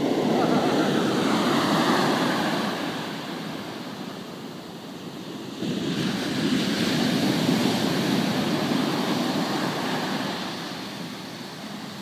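Ocean surf: a wave breaking and washing up the sand over the first few seconds and fading. A second wave comes in with a sudden rise about six seconds in, then swells and dies away.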